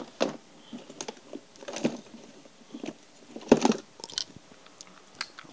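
Small hard tools and parts clicking and clattering as they are picked up and handled on a workbench: irregular knocks and taps, the loudest cluster about three and a half seconds in.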